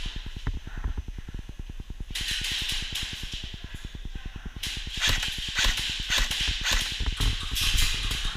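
Airsoft guns firing in rapid full-auto bursts, starting about two seconds in and again, louder, about five seconds in, over a fast, even low thudding.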